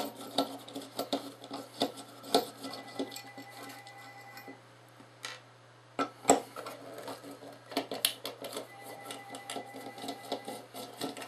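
Hand screwdriver backing screws out of a metal flood light housing: irregular scraping and small metal clicks, with two sharper knocks about six and eight seconds in.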